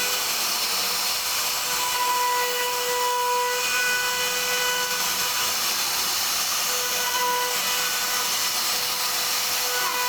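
CNC router spindle running at a steady high whine while its bit cuts into wood with a continuous hiss. The whine swells and fades a few times as the cut goes on.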